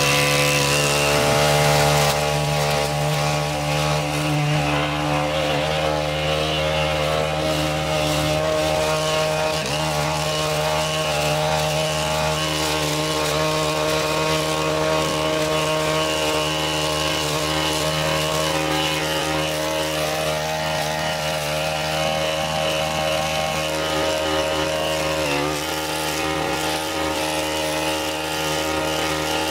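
Gas-powered long-reach hedge trimmer running steadily at high speed. Its engine pitch dips briefly a couple of times as the blades work through the hedge.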